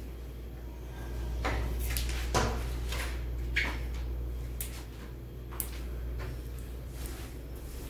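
Steady low hum with a handful of scattered sharp clicks and knocks, the loudest about two and a half seconds in.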